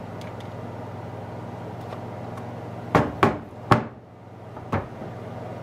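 Underwater camera housing handled and set down on a table: faint small clicks, then three sharp knocks in quick succession about three seconds in and a lighter knock near the end, over a steady low hum.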